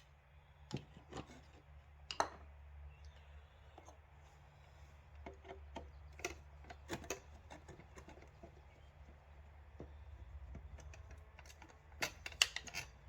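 Scattered light clicks and taps of metal and plastic parts being handled while a satellite receiver is taken apart, over a faint steady low hum.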